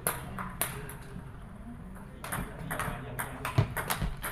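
Table tennis ball ticking on the table and bats: a few sharp clicks, spaced out at first and coming closer together in the second half.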